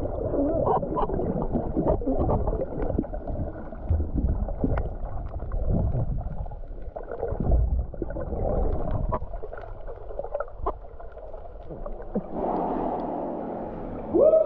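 Muffled underwater sound from a breath-hold snorkeler's camera: water rushing past, bubbles and scattered knocks as he swims through a sea-cave entrance. A steadier hum comes in near the end as he reaches the surface inside the cave.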